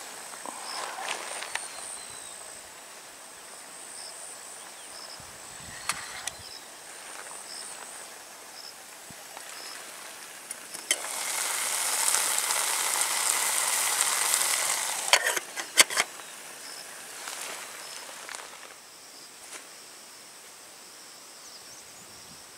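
A pot of vermicelli and vegetables sizzling over heat for about four seconds midway, the loudest sound here, followed by a few sharp clicks. Around it, a faint steady high tone and regular short chirps.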